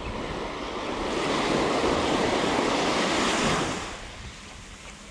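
A small wave breaking and washing up the sand at the water's edge. The wash swells over about a second, holds for about two seconds, then fades away, over a low wind rumble on the microphone.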